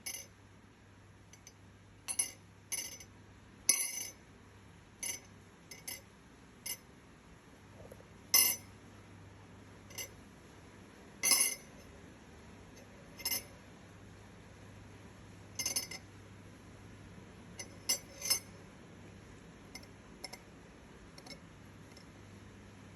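Tableware clinking: short, sharp clinks of hard cups, glass or cutlery, coming irregularly every second or few seconds over a faint low hum.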